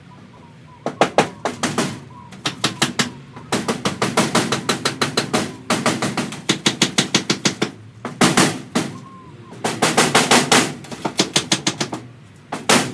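Hammer striking the caravan's timber wall framing in quick runs of blows, about four or five a second, with short pauses between runs.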